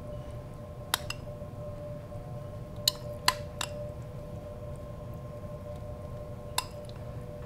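A metal spoon clinking against a glass mixing bowl as mashed squash is scooped out and spread on toast. There are a few sharp clinks: one about a second in, three close together about three seconds in, and one more near the end. Under them runs a steady low hum.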